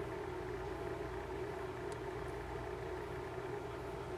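Steady low mechanical hum, even and unbroken, with a faint click about two seconds in.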